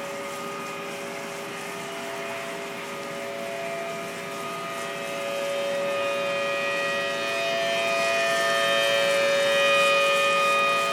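Outdoor civil defense warning sirens sounding a tsunami warning: a steady wail of several tones at once, holding its pitch, that swells louder in the second half.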